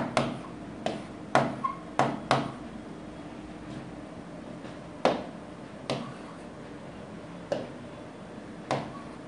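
A pen tapping on a digital writing board as words are handwritten: about ten short, sharp taps. They come in a quick cluster over the first two seconds or so, then singly every second or two.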